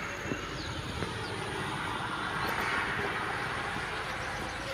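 Outdoor background hiss and rumble that swells and fades in the middle, with faint short falling chirps repeating high above it and two small clicks in the first second.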